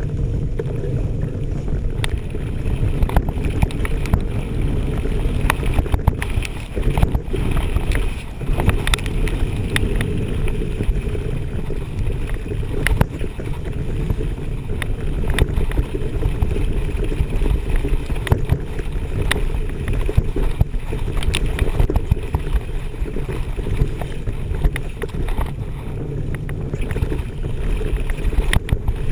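Mountain bike riding fast down a gravel forest trail: a steady low rumble of tyres and wind on the microphone, with frequent sharp clicks and knocks as the bike rattles over bumps.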